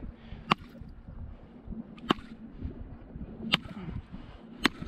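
Four sharp blows of a wooden club on a caught fish's head, about one and a half seconds apart, dispatching the fish.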